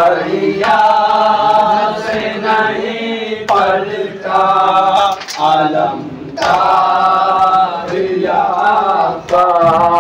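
A group of men chanting a Shia noha (mourning lament) in unison behind a lead singer, in repeated sung phrases of one to three seconds with short breaks between them.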